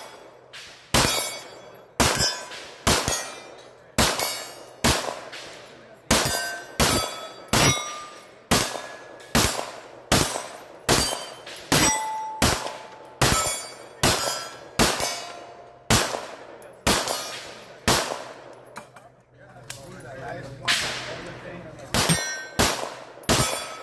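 A rapid string of handgun shots, about one a second or faster, with steel targets ringing after most of the hits at several different pitches. The firing breaks off for about two seconds near the end, then resumes.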